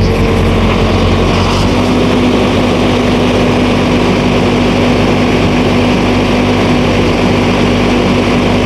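Kubota tractor's diesel engine running steadily, held at about 1500 rpm, with a second tractor's engine running alongside.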